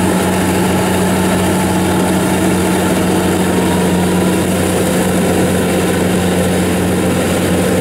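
Kubota DC70 combine harvester running steadily under load while it cuts and threshes rice, a constant engine drone with the rattle of the machinery.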